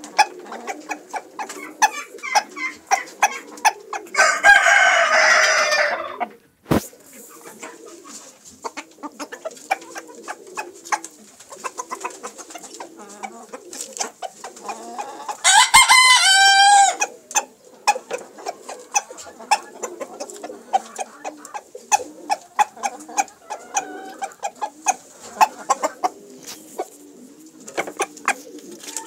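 Rooster crowing twice, each crow about two seconds long: a rougher one about four seconds in and a clearer one about halfway through. In between come soft low clucks and many short clicks.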